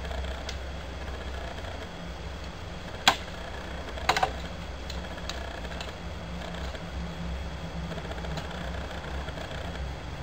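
Plastic sunglasses frame and lenses being handled and set down on a desk: one sharp click about three seconds in and a quick run of clicks a second later, with a few fainter ticks, over a steady low hum.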